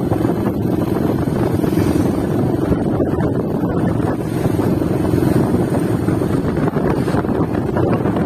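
Wind buffeting the microphone over a steady low rumble, without letting up.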